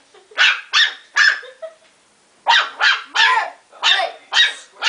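Ten-week-old Morkie puppy (Maltese–Yorkshire terrier cross) barking in short, high-pitched puppy yaps: three quick barks, a pause of about a second, then about five more.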